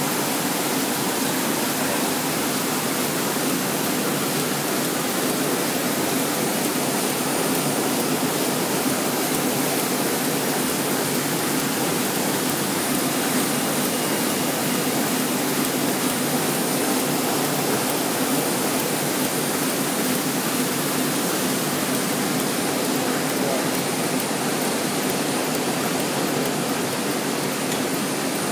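Sheet-fed printing press running at speed, a steady, dense machine roar with a faint high whine coming and going.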